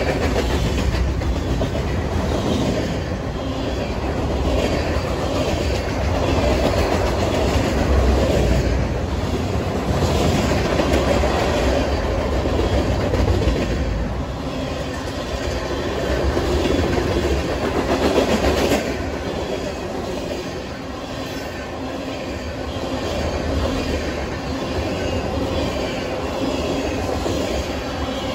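A freight train's tank cars and covered hoppers roll past close by. Steel wheels make a steady rolling noise on the rail, with a rhythmic clickety-clack as the wheelsets cross rail joints.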